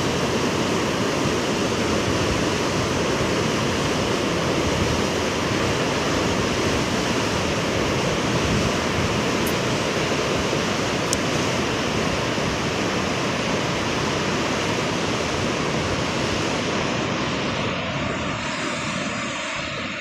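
The Marsyangdi River rushing over rocks: a steady, loud wash of flowing water that eases slightly near the end.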